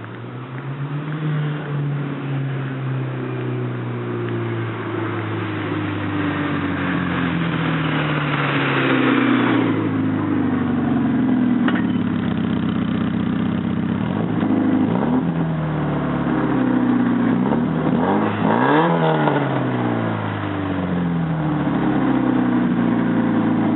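1986 Porsche 944's 2.5-litre inline four-cylinder engine, with an exhaust leak ahead of the catalytic converter, revving. Its pitch climbs and drops back several times, and it gets louder as it goes.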